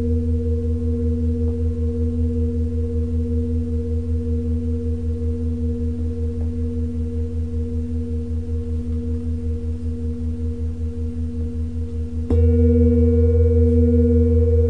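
A large singing bowl, held on an open palm, rings with a deep hum and a couple of higher tones, pulsing in a fast wobble as it slowly fades. About twelve seconds in it is struck again and rings out louder and brighter.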